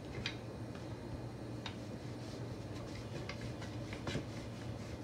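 Wooden rolling pin rolling out a paratha dough ball on a countertop with a light hand: soft rubbing with scattered light clicks and taps as the pin is pressed and moved.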